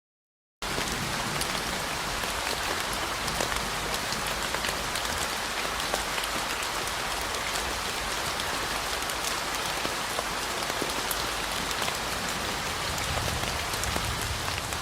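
Steady rain, a dense even hiss with scattered drop ticks, played as a relaxing white-noise sound. It starts abruptly out of silence shortly after the opening.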